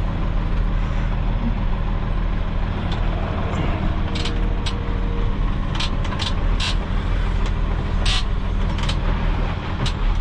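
Loaded dump truck's diesel engine running steadily as the truck creeps down a steep hill, heard from the cab. From about four seconds in there are several short, sharp clicks or hisses, one longer near the end.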